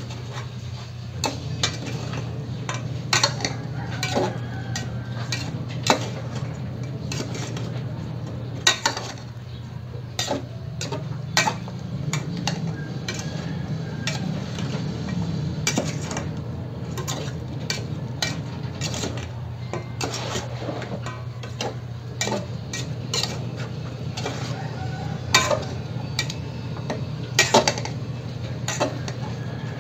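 A metal ladle stirring chicken adobo in an aluminium pot, scraping and clinking irregularly against the pot's sides and rim, over a steady low hum.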